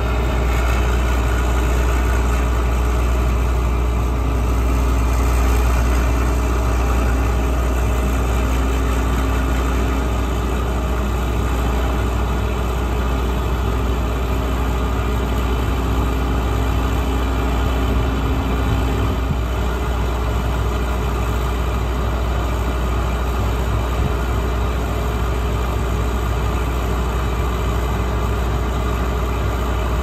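Large John Deere farm diesel idling steadily, a deep even rumble with no revving.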